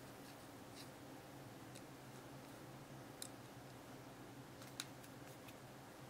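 Faint, scattered small metal clicks of a pick working inside a brass Master Lock 175 combination padlock, a few seconds apart, with the sharpest ones about three seconds in and just before five seconds.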